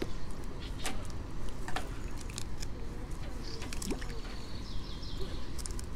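Small wet splashes and drips with scattered short clicks of close handling, over a low steady rumble; a faint wavering whistle, like a bird, about five seconds in.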